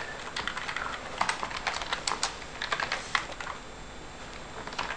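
Typing on a computer keyboard: a run of irregular key clicks that thins out about three and a half seconds in.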